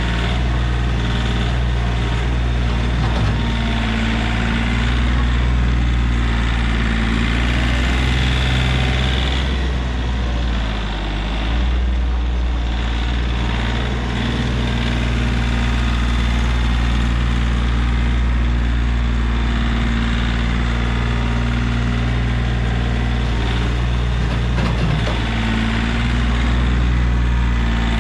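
Kioti CK3510 compact tractor's three-cylinder diesel engine running steadily while the tractor works its front loader, dipping briefly about eleven seconds in.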